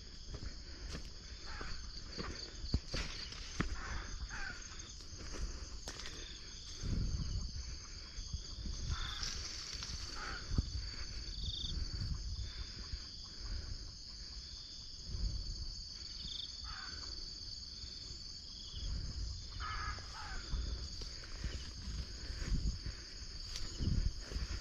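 Steady, high-pitched chorus of insects, with irregular low thumps and brushing of someone walking through vegetation, and scattered short chirps.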